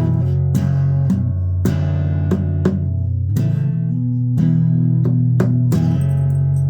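Guitar playing: chords struck again and again, each with a sharp attack and ringing low notes.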